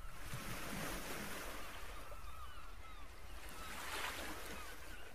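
Faint outdoor pond ambience: a steady low rush of wind and water with a few faint, short bird chirps.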